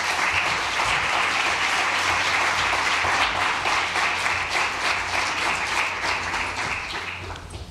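Audience applauding, easing off slightly near the end.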